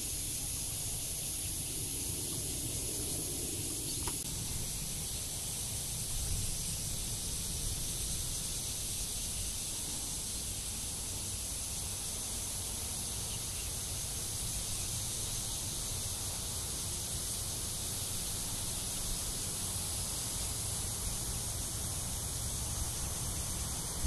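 Steady chorus of cicadas, a dense high-pitched shrill that holds unchanged throughout, over a low steady rumble.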